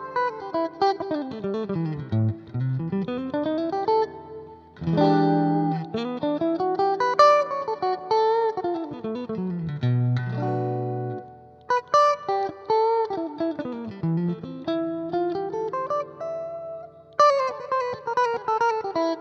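Electric guitar played clean through a Roland Blues Cube Hot amplifier, taken from the amp's line out, with flat EQ and the amp's built-in reverb at halfway. The guitar plays quick rising and falling arpeggio runs with a couple of held chords.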